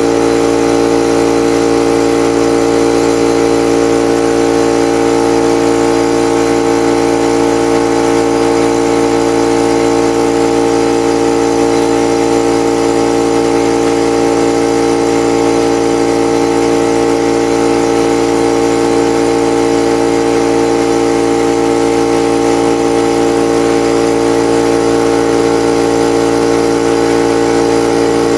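High-pressure air compressor running steadily, filling a PCP airgun's air reservoir; a constant mechanical hum with several steady tones that does not change.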